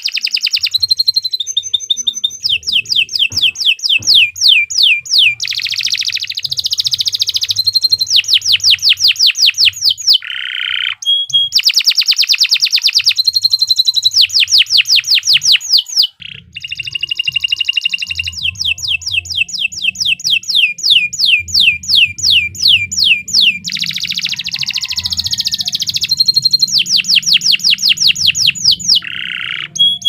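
Domestic canary singing a long, continuous song: fast trills of repeated downward-sweeping notes, several a second, alternating with buzzy rolls. The song breaks only briefly, about ten and sixteen seconds in.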